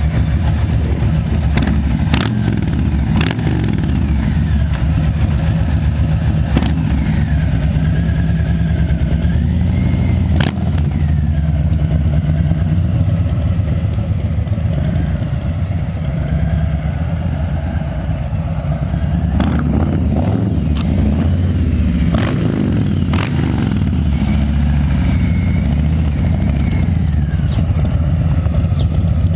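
Harley-Davidson Low Rider S Milwaukee-Eight 114 V-twin running through Vance & Hines slip-on mufflers, a steady low exhaust note. Several sharp clicks are heard along the way.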